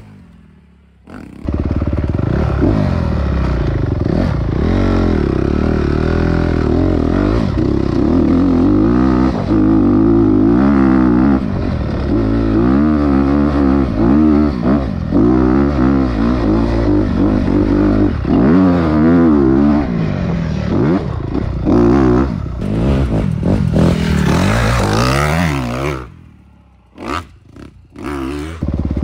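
Dirt bike engine being ridden hard, its pitch rising and falling repeatedly with throttle and gear changes. It drops out briefly at the start, and again near the end, where a few sharp knocks are heard.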